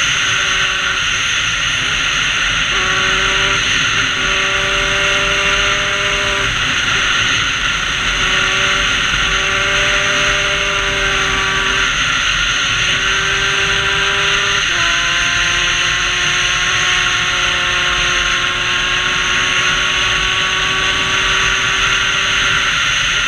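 Sherco 50 bored out to 75 cc with an MVT kit, a two-stroke single, running hard at high revs under heavy wind rush. Its note holds in long stretches and breaks off briefly three or four times before coming back at a new pitch.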